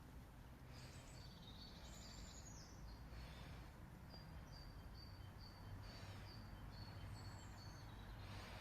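Faint high-pitched bird chirps: a run of short repeated notes with one higher gliding call about two seconds in, over a low steady rumble.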